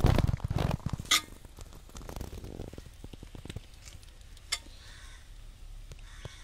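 Metal spatula scraping and scooping cooked tomato rice and tipping it onto a banana leaf, with a busy run of scrapes and taps in the first second. Scattered light taps follow, one sharp tap comes about four and a half seconds in, and it then goes quiet.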